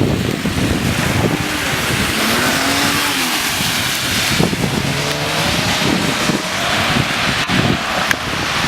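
Storm wind gusting and buffeting the microphone over a steady hiss of rain, with a faint wavering whistle rising and falling in the middle.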